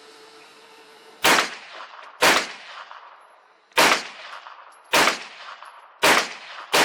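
TNW Aero Survival Rifle, a 9mm semi-automatic carbine, fired six times in single shots at an uneven pace, about a second or more apart, with the last two closer together. Each shot is followed by a short echoing tail.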